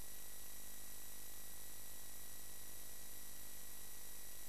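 Steady static hiss with a faint electrical buzz and hum underneath and a few fixed thin whines, unchanging throughout: background line noise with no program sound.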